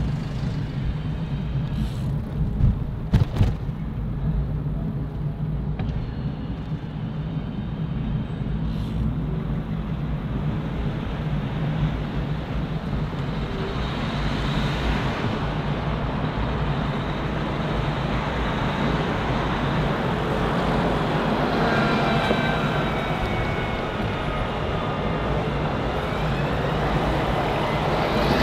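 City road traffic: motor vehicles passing with a steady low engine rumble, a few sharp knocks a couple of seconds in, and engine tones rising in pitch in the second half as a vehicle pulls away.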